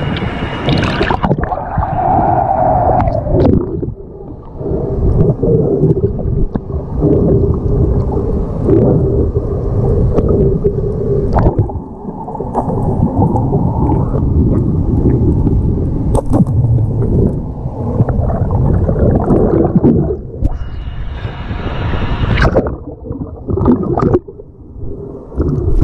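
Muffled underwater water noise picked up by a submerged camera: gurgling and rushing water dulled to a low rumble, with a faint steady hum in the middle.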